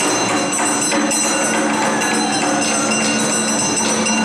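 Live Awa Odori festival music (hayashi) played by the dance group's band: drums with jingly, metallic percussion over held melodic notes, continuous and loud.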